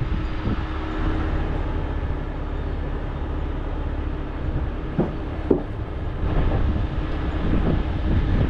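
Diesel engine of a Peterbilt 389 heavy rotator tow truck running with a steady low rumble as it backs slowly up to another truck. There are two short knocks about five seconds in.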